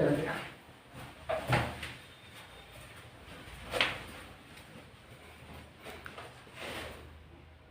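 Four short knocks and shuffles, the sharpest about four seconds in, as a chiropractor manipulates a patient's spine and neck on the treatment table.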